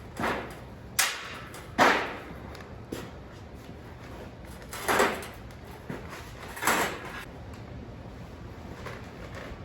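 Steel tube grid of an IBC tote cage clanking and rattling in a handful of sharp knocks, about five in all, as its sides are bent inward.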